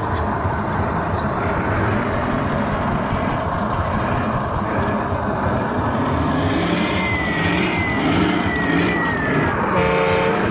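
Busy hall sound around radio-controlled model semi trucks: a steady low rumble and hubbub. In the later part comes a run of falling whistle-like chirps, then a short horn-like blast near the end.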